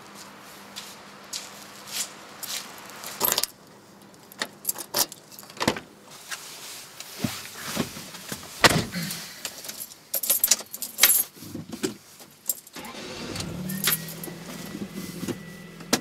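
Keys jangling with handling clicks and knocks in and around a car. About thirteen seconds in, a steady hum sets in with a thin high tone above it.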